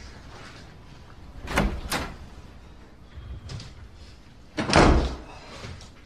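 A door opening and closing: two short knocks about a second and a half in, then a louder, heavier thud near the end as it shuts.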